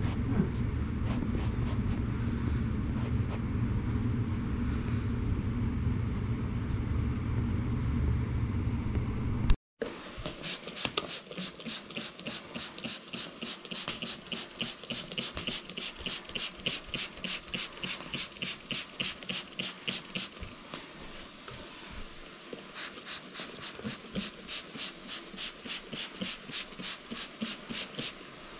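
A steady low machine rumble. Then a hand trigger spray bottle spritzes stain remover onto the carpet in quick repeated squirts, about two or three a second, pausing briefly before going on.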